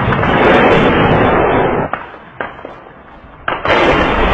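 Explosions: a loud rumbling blast noise that drops away about two seconds in, a few sharp cracks, then a sudden second loud blast near the end.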